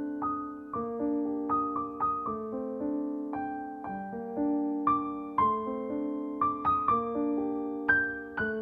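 Background music: a soft solo piano melody, notes struck one after another at a gentle pace.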